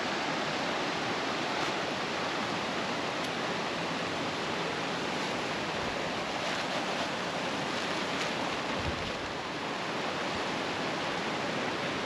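Fast mountain stream rushing over boulders and stones: a steady, even sound of running water.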